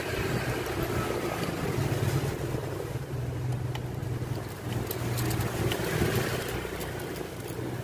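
Faint small clicks of a precision screwdriver turning tiny Phillips screws in a vape mod's metal top, over a steady low hum.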